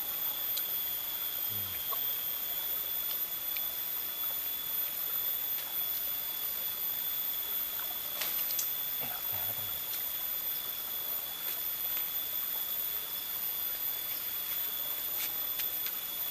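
Steady forest background: a continuous hiss with a constant high-pitched whine above it, and a few faint clicks about eight seconds in.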